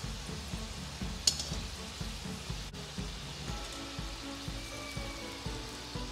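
Spinach Manchurian balls deep-frying in oil in a kadhai: a steady sizzle of bubbling oil, with one sharp clink about a second in.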